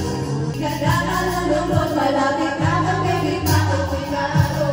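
A pop song with singing over a backing track with a bass line and a beat.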